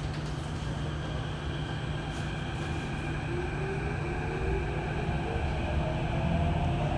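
Cabin noise of a Kawasaki-Sifang CT251 metro train pulling away from a station: a steady low hum and running noise, with a traction motor whine rising in pitch from about halfway through as the train speeds up.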